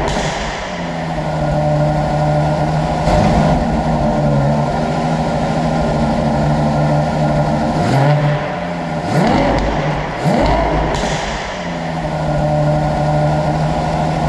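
Ferrari Purosangue's V12 idling steadily, revved in several short throttle blips that rise and fall back to idle, with a cluster of quick blips in the second half.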